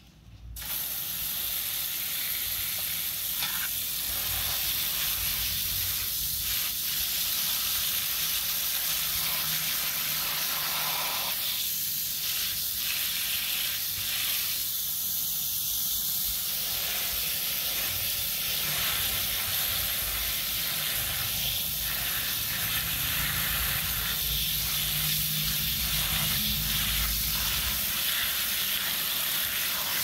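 Pistol-grip garden hose nozzle spraying a jet of water onto foam-covered toys and wet concrete: a steady hiss of spray and splashing that starts about half a second in.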